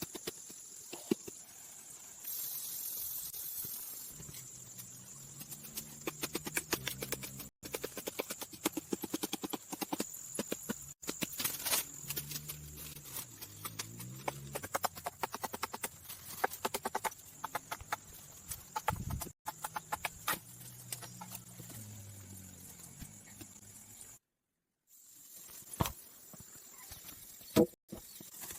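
Rapid, irregular knocking and clicking, broken by a few brief drops to silence.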